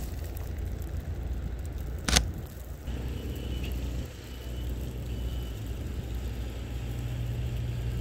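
Low, steady rumble of city street traffic through snow, with one sharp click about two seconds in.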